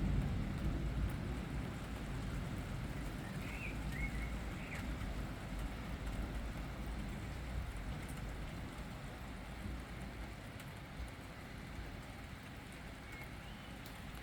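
Steady rain with a low rumble underneath that slowly fades, and a few short bird chirps about four seconds in.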